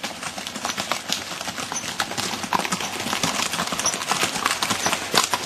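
Hooves of several horses clip-clopping in an irregular, overlapping patter as a line of riders passes.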